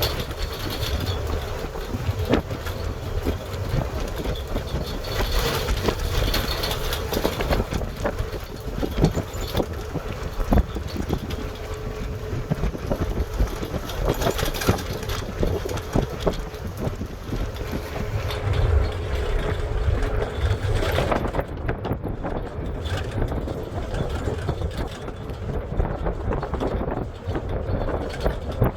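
Vehicle moving, with a steady low rumble and frequent small knocks and rattles.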